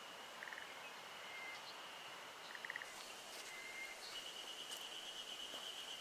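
Natural ambience: a steady high-pitched insect buzz that grows louder about four seconds in, with a few short bird chirps and trills over it and some faint clicks.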